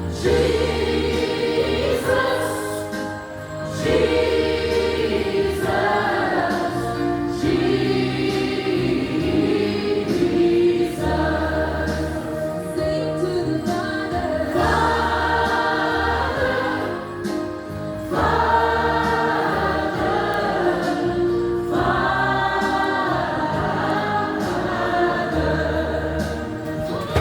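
Women's choir singing a gospel hymn in phrases over a keyboard accompaniment with sustained bass notes.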